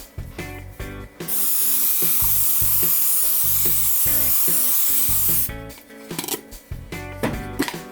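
A loud, steady spraying hiss starts about a second in and lasts about four seconds, then stops, over background music with a steady beat.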